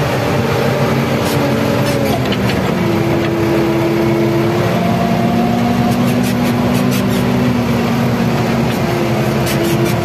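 Randon backhoe loader's diesel engine running steadily under the operator's seat, heard from inside the cab while the machine travels; the engine note drops about two to three seconds in, then settles at a slightly different pitch, with light rattles over it.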